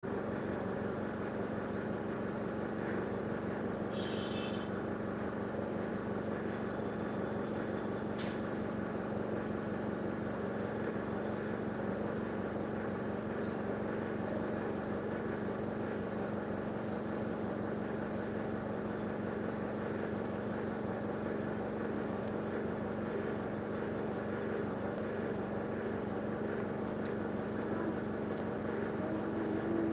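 A steady low hum with a noisy haze over it, unchanging, with a few faint high ticks.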